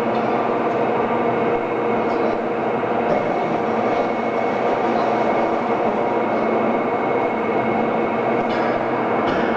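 Train carriages in the gauge-changing shed during the bogie exchange: a steady mechanical hum and rumble with a few faint metallic clicks, several close together near the end.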